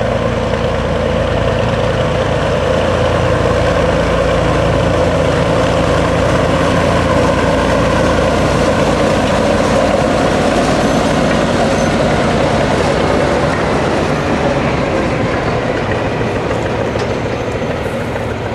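45-ton diesel switcher locomotive running as it rolls slowly past with its flatcars, wheels turning on the rails. The low engine hum is strongest in the first half and drops off as the locomotive moves away.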